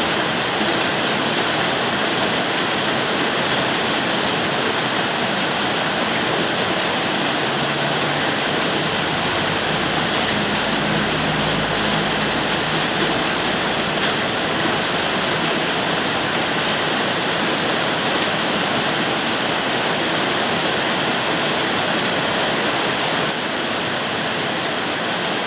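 Heavy, steady rain falling as a dense, even hiss.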